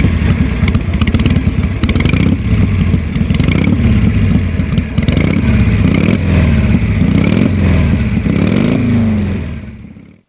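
Motorcycle engine revving up and down over and over, loud, fading out near the end.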